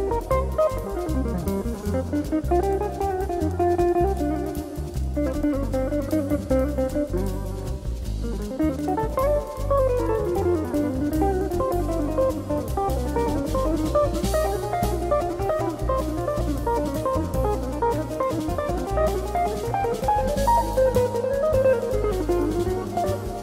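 Jazz group playing live: a guitar carries a flowing melody over a steady drum-kit groove.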